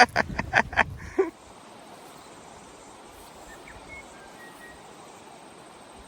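A duck quacking in a fast rhythmic series, about six quacks a second, that stops about a second in. After it there is the steady rush of the river and a few faint bird chirps.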